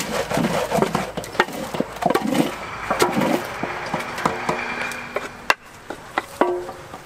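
Wooden paddle stirring and scraping puffed rice mixed with hot syrup in an aluminium basin, with repeated knocks and scrapes against the metal as the sticky mix is turned over before it cools. The knocking thins out after about five seconds.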